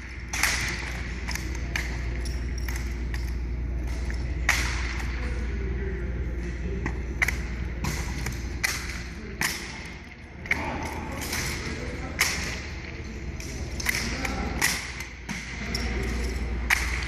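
Drill rifles being spun, caught and slapped in a two-person drill routine: an irregular string of sharp knocks and thumps, several with a short metallic ring.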